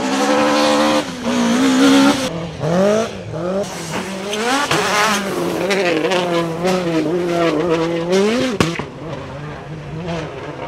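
A car engine revving, its pitch sweeping up and down again and again, with a single sharp crack about eight and a half seconds in.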